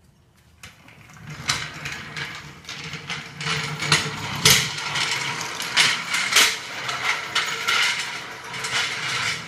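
Dense, irregular mechanical clicking and clattering, as from metal tools or parts being worked. It builds about a second in and cuts off suddenly at the end.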